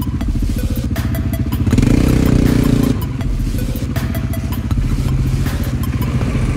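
ATV engine running under throttle over a rough off-road dirt track, with rattles and knocks from the bumps. The engine gets louder for about a second, around two seconds in.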